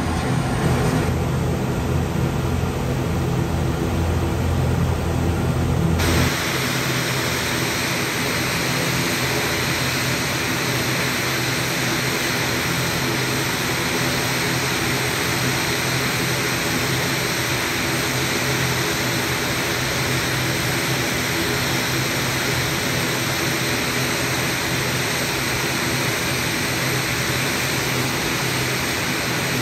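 ATR 72 turboprop engines and propellers running with a steady drone. About six seconds in the sound changes abruptly from a low humming drone to a broader, hissier rush that holds steady.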